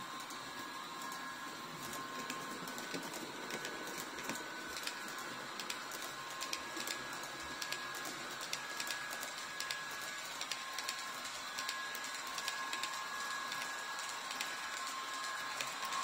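HO scale model freight train running past behind a Roco IORE locomotive pair: a steady motor whine with many quick, irregular clicks of the wagon wheels over the rail joints of newly relaid track.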